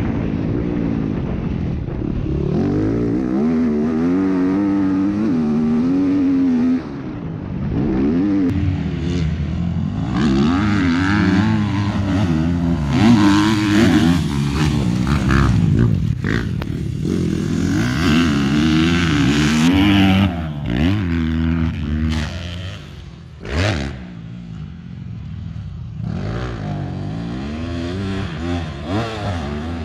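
Yamaha YZ250F dirt bike's four-stroke single-cylinder engine being ridden hard, revving up and down over and over as the throttle opens and closes through gear changes. It drops off and goes quieter for a few seconds past the middle, then picks up again.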